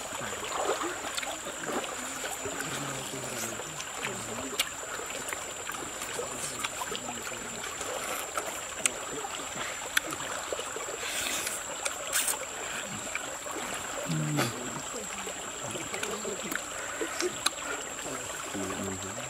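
Forest stream running steadily, with scattered small clicks of eating by hand and a thin steady high tone throughout. A few brief low hums of a man's voice break in now and then.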